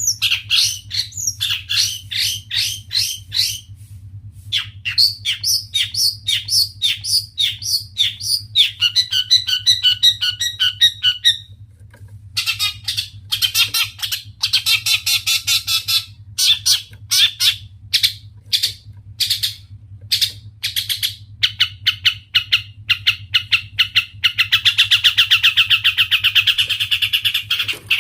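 Long-tailed shrike (cendet) singing loudly: rapid runs of short, harsh chattering notes and trills, with a fast buzzing rattle over the last few seconds.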